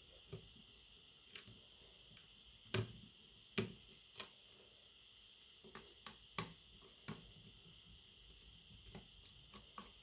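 Scattered light clicks and taps, about a dozen, the two loudest about three seconds in, from small tools, screws and parts of a tablet being handled on a tabletop during disassembly. A faint steady high hiss lies underneath.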